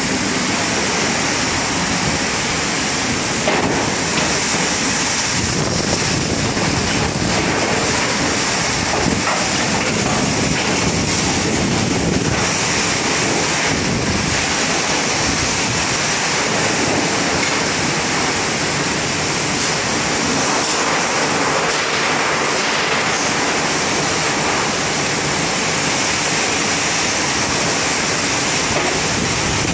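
Heavy rain falling steadily in a downpour onto corrugated metal roofs and a concrete balcony ledge.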